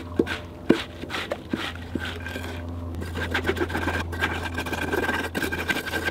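Wooden screed board scraping and knocking against a wooden form of freshly poured concrete: a few light knocks, most in the first two seconds, over a steady low hum.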